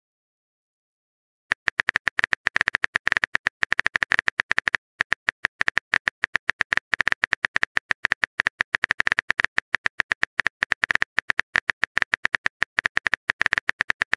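Keyboard-tap click sound effect of the Texting Story app as a message is typed, a rapid, uneven run of short sharp clicks starting about a second and a half in.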